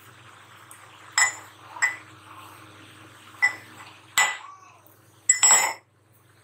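Stainless-steel mortar knocked against a steel plate to tap out coarsely crushed pepper and cumin: four separate ringing metal clinks. Near the end comes a louder, longer clatter as the steel mortar and pestle are put down.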